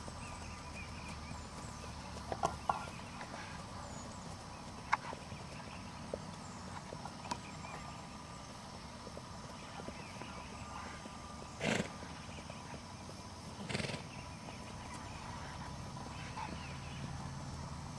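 Tennessee Walking Horse's hoofbeats on grass as it is ridden at a walk, with scattered light clicks and two short, louder noisy bursts about twelve and fourteen seconds in.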